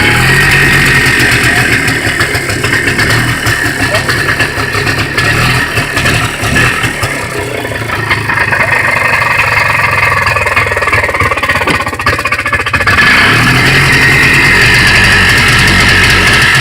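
Polaris two-stroke engine running loud, loudest at the start and again from about 13 seconds in, easing off in between.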